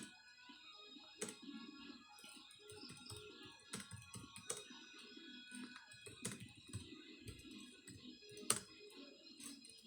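Typing on a computer keyboard: irregular keystrokes, a few of them sharp and loud, over faint background music.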